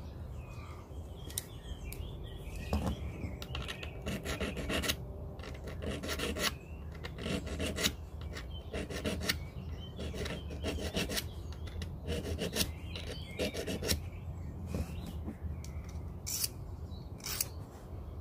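A knife blade drawn in repeated strokes across the Leatherman Signal multitool's diamond-coated sharpening rod, one rasping stroke roughly every second.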